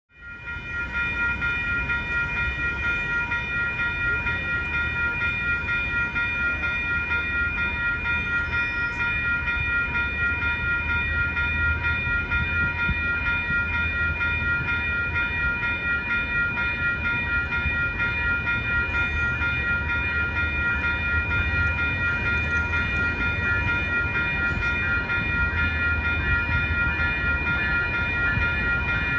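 Railroad crossing warning bells ringing steadily in a fast, even rhythm, over the low rumble of an approaching passenger train.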